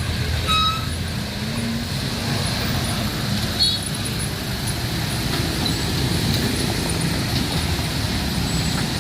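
Road traffic at a level crossing: the steady low rumble of car, truck and bus engines, with a short beep about half a second in and a brief high beep about three and a half seconds in.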